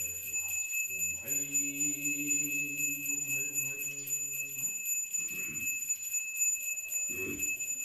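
A bell rung continuously gives a steady high ring, while a voice chants a ritual invocation and holds one long note from about a second in for some three seconds.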